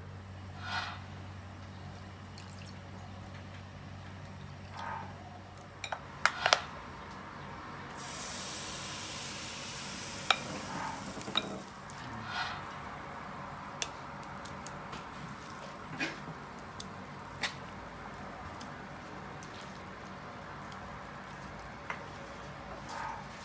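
Kitchen work sounds: utensils and dishes clicking and knocking now and then, with a steady hiss for about three seconds in the middle.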